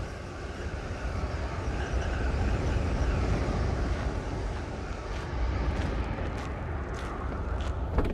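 A steady, dense low rumble like a distant engine or airplane drone, with a faint steady tone above it, used as the ambient intro of a song. From about five seconds in, a few sharp clicks come through, the loudest just at the end.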